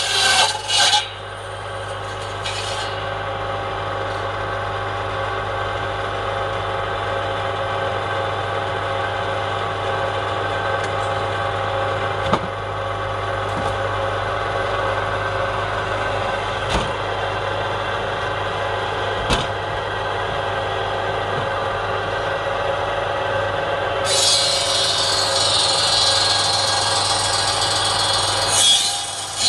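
Bandsaw running steadily with a motor hum, with a few light clicks in the middle. The blade is cutting through a palm log in the first second and again from about 24 seconds in, adding a loud, hissing sawing noise for several seconds.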